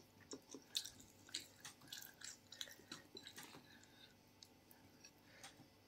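Faint, irregular chewing: soft mouth clicks and smacks of food being eaten, a few each second.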